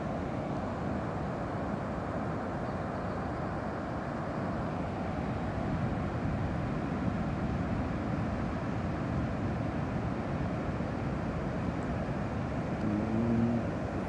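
Distant ocean surf breaking beyond a reef flat: a steady, low wash of noise with no single wave standing out.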